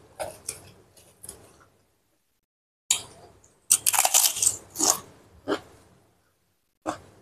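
Krupuk crackers crackling as a hand takes them from a plastic bag, then, after a short pause, a burst of loud crunching about four seconds in as a crisp cracker is bitten and chewed close to the microphone, with a few more single crunches near the end.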